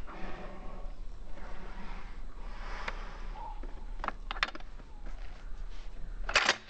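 Pump-action shotgun being handled one-handed: soft rustling, a few sharp metallic clicks about four seconds in, and a louder double clack near the end.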